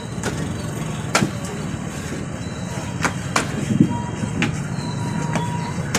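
Murmur and shuffling of a gathered crowd outdoors, with several sharp knocks or clicks scattered through and a faint steady tone lasting about a second and a half in the second half.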